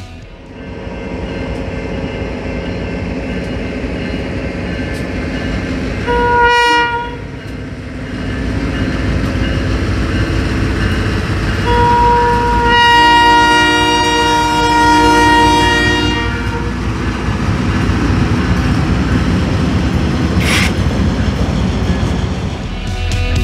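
Union Pacific diesel locomotives rumbling past, pushing a Jordan spreader snowplow. The locomotive horn sounds a chord of several notes, first as a short blast about six seconds in and then as a longer blast of about four seconds. A brief hiss comes a few seconds after the long blast.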